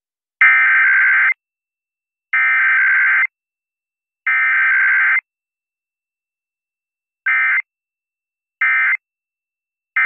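Emergency Alert System SAME data bursts for a required weekly test: three buzzy, screeching digital bursts of about a second each, about two seconds apart, carrying the alert header. They are followed by three short end-of-message bursts a little over a second apart, the last starting near the end.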